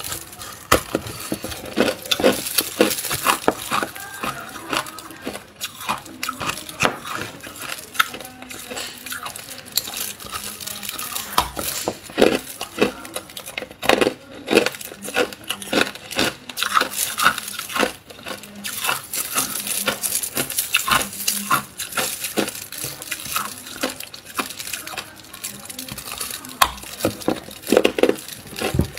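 Hard clear ice being bitten and crunched close to the microphone: irregular sharp cracks and crunches, several a second.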